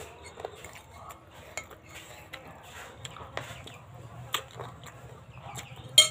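A spoon clinking and scraping against a bowl of meatball soup, in separate sharp clinks a second or so apart, the loudest near the end.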